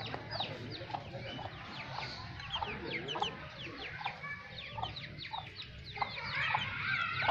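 Ducklings peeping: many short, high chirps that slide downward, overlapping in a steady chatter. A lower, fuller fowl call joins near the end.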